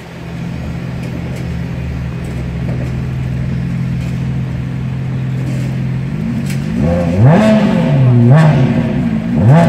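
Ferrari engine idling steadily, then revved in a few quick blips, each rising and falling, during the last three seconds.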